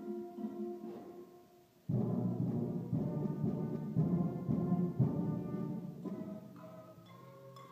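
School band with trombones and saxophones playing: soft held notes, then about two seconds in the full band comes in loud with drum-like hits, easing off near the end.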